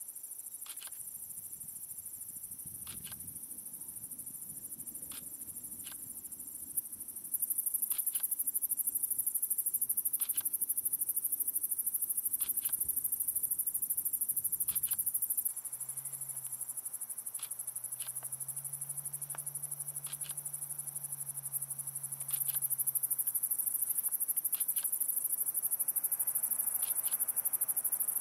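Crickets and other night insects calling in a continuous high-pitched trill that gets louder a few seconds in, eases off midway and swells again, with short sharp clicks every second or two.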